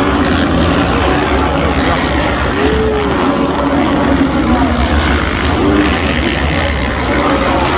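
Several motocross bikes racing on a dirt track, their engines revving up and down over one another in a continuous loud din.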